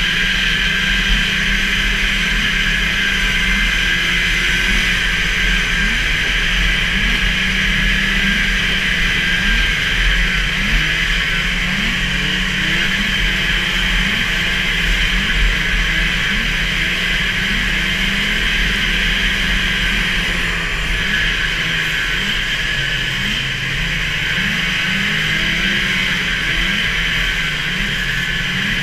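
The two-stroke engine of a 440 super stock racing snowmobile running hard at racing speed, its pitch rising briefly every second or so as the throttle is worked, with wind buffeting the on-board microphone.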